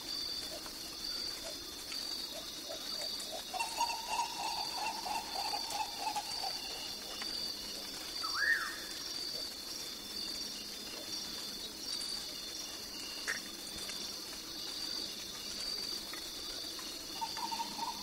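Jungle ambience of calling insects, frogs and birds. A steady high chorus pulses about twice a second, a run of rapid lower calls comes a few seconds in, and a couple of short whistled calls rise and fall.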